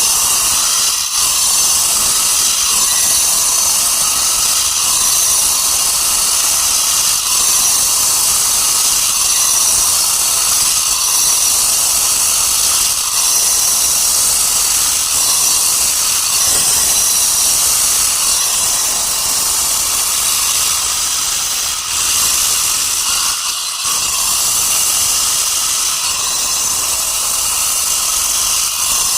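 Power cutting saw running through stone, a loud, steady hiss with brief dips about 22 and 24 seconds in.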